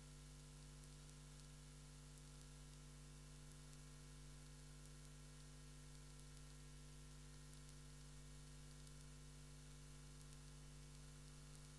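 Near silence: a steady electrical hum over faint hiss.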